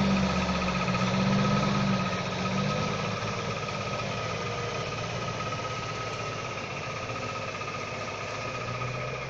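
Logging truck's diesel engine running, loudest for the first two seconds or so, then fading to a steadier, quieter drone with a thin high whine.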